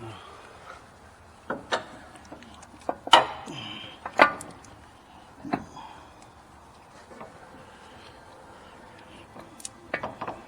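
A series of sharp knocks and clanks, about six in the first six seconds with the loudest two near the middle, from a CV axle and metal parts being handled and moved into place.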